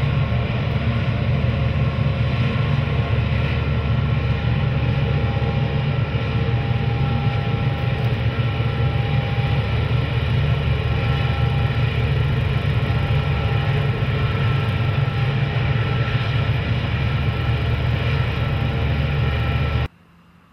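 A loud, steady low rumble with several held tones above it. It cuts off abruptly near the end.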